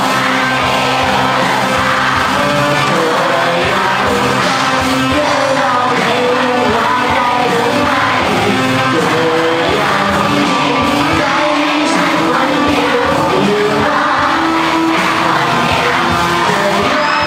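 Live amplified rock band playing: electric guitars, drum kit and a singer singing and shouting into a microphone, echoing in a large hall.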